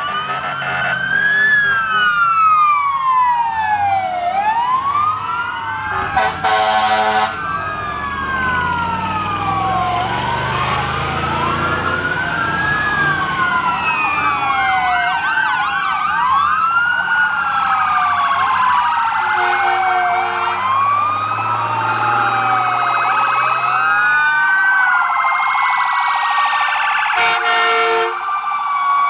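Several emergency sirens on passing fire trucks wailing at once, their rising and falling pitches overlapping, over the low running of the trucks' engines. Truck air horns blast briefly about six seconds in, again around twenty seconds, and near the end.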